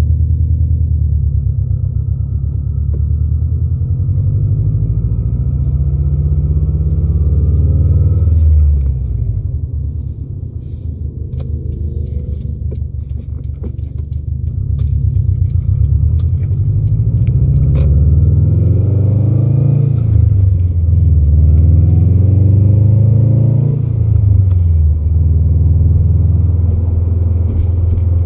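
Car engine with a new exhaust, heard from inside the cabin while driving: a deep, loud drone whose pitch climbs under acceleration and falls back several times.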